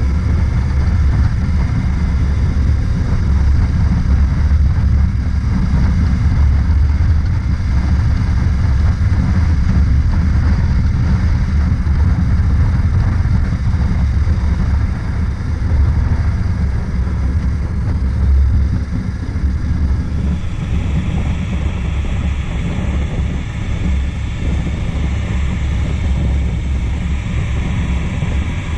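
Honda CB500X parallel-twin motorcycle cruising steadily at about 55 km/h, heard from the rider's seat as a low rumble of engine and wind buffeting the microphone. About two-thirds of the way through, a higher hiss joins in.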